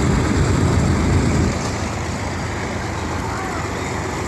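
A Vought F4U Corsair's radial piston engine running with a deep, heavy rumble. It is loudest for about the first second and a half, then settles to a steady drone.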